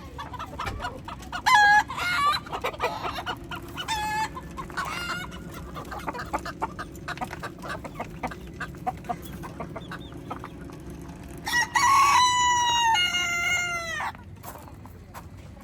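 Roosters giving short clucking calls over the first few seconds, then one rooster crowing a long cock-a-doodle-doo about twelve seconds in, its pitch dropping at the end. Small clicks run throughout.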